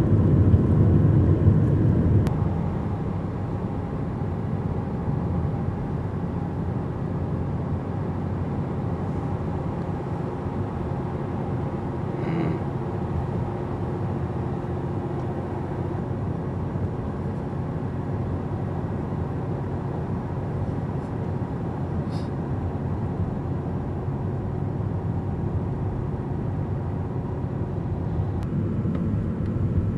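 Steady road and engine rumble heard from inside a moving car. It is louder for the first two seconds, then settles to an even lower drone.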